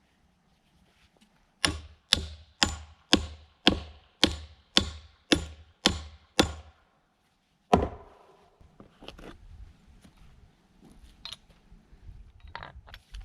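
A hammer driving a nail into a wooden fence brace: about ten sharp, evenly spaced blows at roughly two a second, each ringing briefly, then one last heavy blow a second later, followed by a few light knocks.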